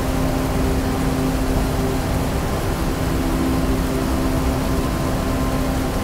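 Steady roar of a large waterfall: a dense, even rushing of falling water, strongest in the low range. A steady low tone runs beneath it.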